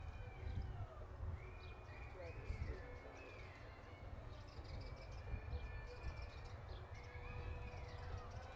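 A horse loping on soft arena dirt, its hoofbeats coming as muffled, uneven low thuds. Thin, wavering high chirps and whistling tones sound over them.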